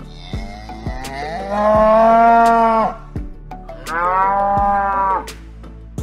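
Domestic cow mooing twice: two long, drawn-out moos, the first starting about a second and a half in and the second a second later. Light background music with a steady beat runs underneath.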